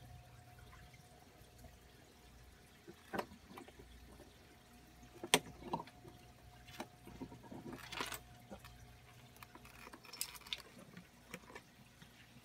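Faint, scattered clicks and taps of handling, the loudest about five seconds in, over a faint steady hum.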